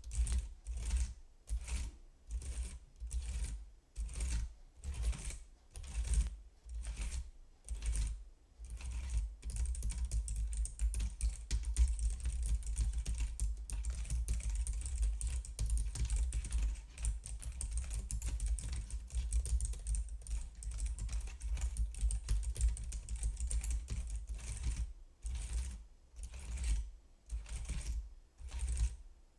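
Fingers typing on a computer keyboard, key clicks in quick runs. At first the runs come in short bursts with brief pauses, then there is a long stretch of fast, unbroken typing, and near the end the short bursts return.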